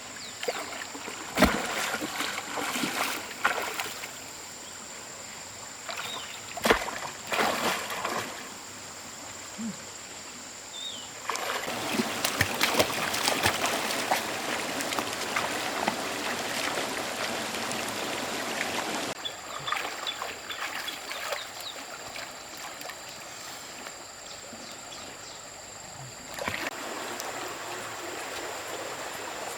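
Water splashing and trickling, with a few sharp knocks early on and a louder, steady rush of splashing water lasting about eight seconds in the middle.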